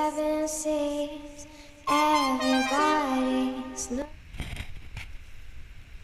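Music with a woman singing a slow melody in two phrases, with a short gap between them; the song stops about four seconds in. After it there is only low rumbling noise with a couple of sharp knocks.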